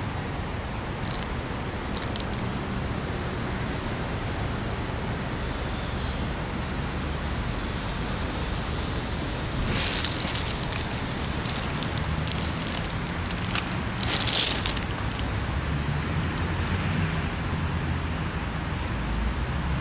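Steady outdoor hum of distant road traffic. Brief crackling rustles of dry fallen leaves come about ten seconds in and again around fourteen seconds in.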